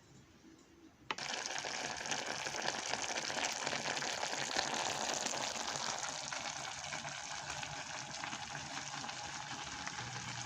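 Pot on the stove sizzling and bubbling steadily, a fine crackling hiss that starts suddenly with a click about a second in, after near quiet.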